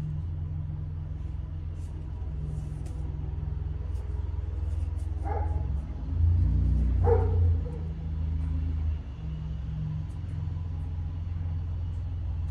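A car engine running with a steady low rumble that grows louder about six seconds in. A dog barks twice in the middle, about two seconds apart.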